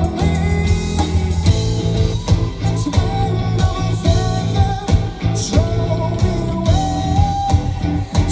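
Live rock band playing loudly: a singer with electric guitars and drums, heard through the stage PA.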